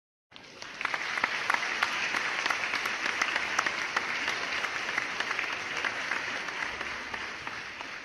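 Audience applauding: many hands clapping densely together. It starts suddenly after a brief silence, holds steady, and begins to die away near the end.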